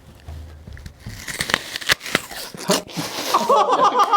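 Several sharp crackling clicks, then stifled, giggling laughter from about three seconds in.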